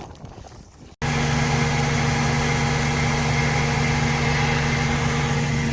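Wind buffeting the microphone for about a second, then, after a sudden cut, a Claas Lexion 650 combine harvester's engine running steadily at working speed, a constant machine drone with a steady low pitch.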